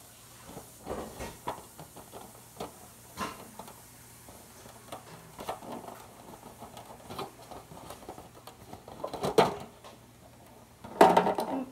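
Disposable aluminium foil pans being handled and fitted together: scattered crinkles and clicks of the thin metal, with louder crackles about nine seconds in and near the end.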